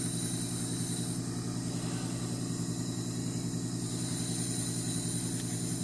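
An engine running steadily at idle: an even hum with a fast, regular pulse that does not change.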